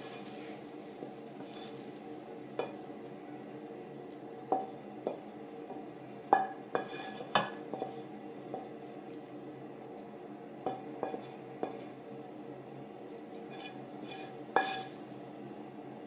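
Metal utensil clinking and scraping against a pot or bowl, about a dozen light, irregular knocks with a short ring, the loudest between about six and seven and a half seconds in, over a steady low hum.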